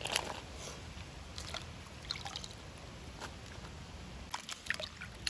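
Cubes of raw breadfruit being washed by hand in water in a clay pot: short splashes and drips as the pieces are stirred and lifted, about one every second.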